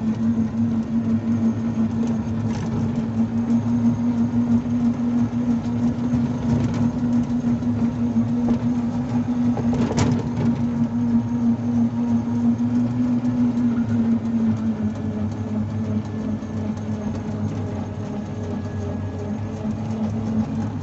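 Small motor scooter running along a street, its motor giving a steady whine over road and wind noise; the whine fades about two-thirds of the way through. A single sharp click about halfway.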